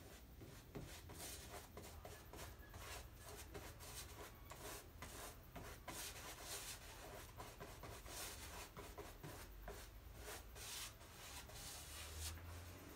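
A wide flat paintbrush stroking back and forth over a canvas as an oil glaze is brushed on: a faint, continuous run of soft rubbing strokes, several a second.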